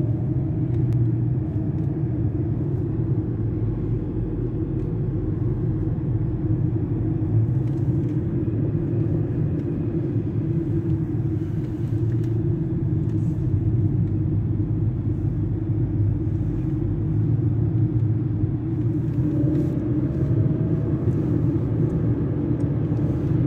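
Steady low road and engine rumble inside a moving car's cabin, with a faint rising whine briefly near the start and again near the end.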